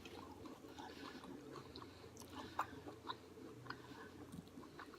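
A person chewing a mouthful of chicken and rice, faint, with scattered small clicks and one sharper click about two and a half seconds in.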